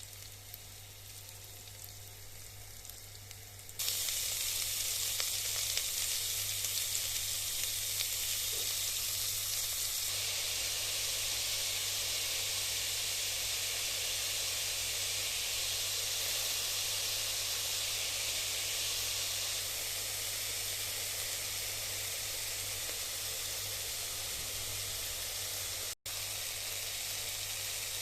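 Food frying in hot oil in a pan: a steady sizzle that jumps sharply louder about four seconds in and then keeps on evenly, cutting out for an instant near the end.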